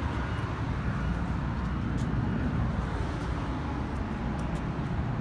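Steady low rumble of road traffic, with no clear single event standing out.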